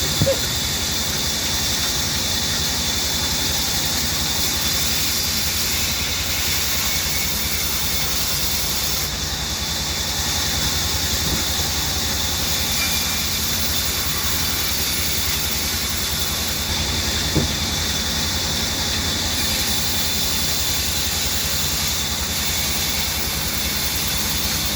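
Large woodworking band saw running steadily: an even motor hum under a constant hiss, with a short knock just after the start and another about seventeen seconds in.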